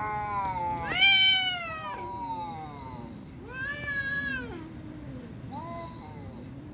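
Two cats in a standoff yowling at each other, the aggressive caterwauling that comes before a cat fight. A long, wavering yowl falls in pitch and is loudest about a second in, followed by two shorter yowls.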